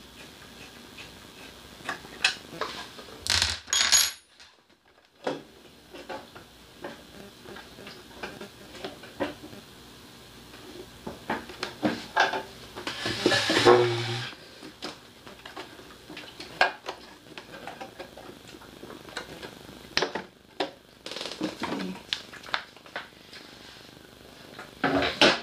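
Irregular knocks, clicks and clinks of a small Daiden portable generator's housing and metal parts being handled and taken apart, with a longer, louder rattle about halfway through.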